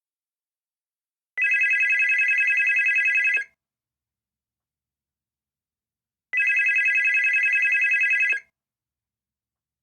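Telephone ringing: two rings of about two seconds each, with a fast trill, separated by a silent pause of about three seconds, in a steady ring-and-pause cadence.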